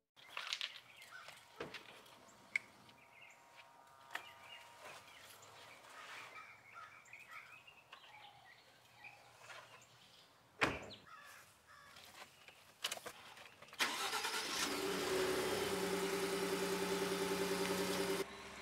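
Birds chirping faintly, then a pickup door shuts with a single loud thud about ten seconds in. A few clicks follow, and a Ford F-150 pickup's engine starts and runs at a steady idle until the sound cuts off just before the end.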